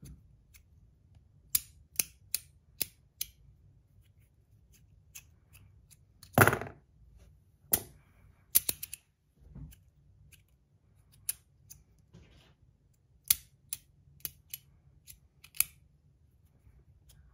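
Bruce Charles Design Stack Slider, a brass magnetic stackable haptic slider fidget, clicking as its six stacked pieces are slid and snapped against each other. The clicks are sharp and irregular, with a louder clack about six seconds in.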